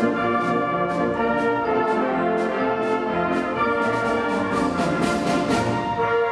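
High school symphonic band playing a march, brass instruments leading over a steady percussion beat of about two strokes a second, with a brighter cymbal wash around five seconds in.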